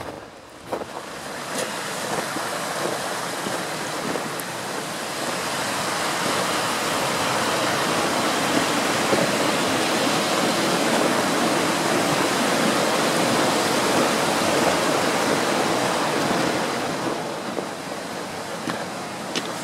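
Rushing water of a mountain stream, swelling to its loudest midway and fading again as it is passed over on a wooden footbridge.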